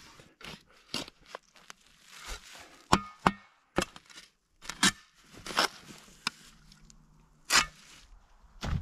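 Steel spade shovel stabbing into rooty forest soil and tossing dirt aside: about ten sharp, irregularly spaced crunching strikes and scrapes.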